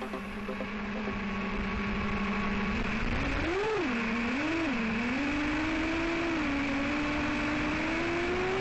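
FPV quadcopter's four Emax RS2205 2600kV brushless motors spinning 5-inch propellers, heard through the onboard camera: a steady hum at idle, then about three seconds in the pitch swoops up and down with the throttle and settles into a higher, steadier whine over propeller hiss.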